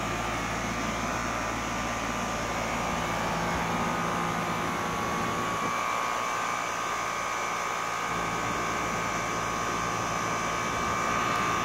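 Outdoor central air-conditioning condenser unit running: its fan and compressor make a steady whooshing hum with a steady mid-pitched tone.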